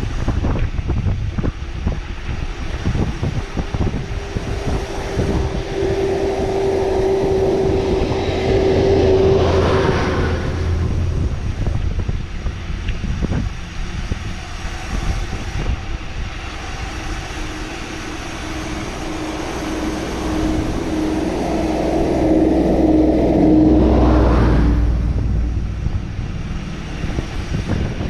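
Wind rushing over the microphone during a downhill ride, with a steady low rumble throughout. It swells twice, about nine seconds in and again near 23 seconds, each time with a steady hum.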